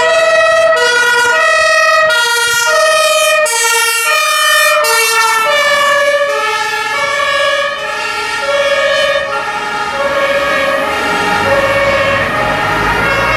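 Two-tone emergency siren of a fire brigade command vehicle, alternating between two pitches about twice a second. Both tones drop in pitch about five seconds in. A low engine rumble rises under it near the end.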